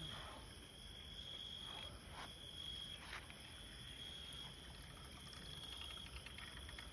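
Crickets chirping steadily in the night, a thin high trill that doesn't let up, with a few faint knocks and ticks scattered through it.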